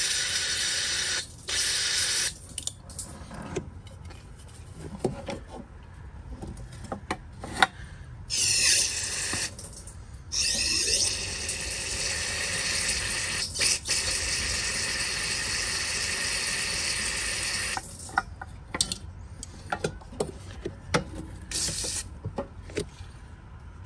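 Aerosol brake cleaner hissing in several bursts as it is sprayed through the fuel-line quick-connect fittings into the fuel tank, flushing the lines. The longest burst runs about eight seconds in the middle, with clicks and knocks between bursts.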